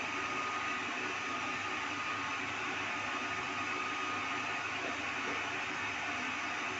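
Electric blow dryer running steadily: a constant rushing of blown air with a faint, steady high whine from the motor.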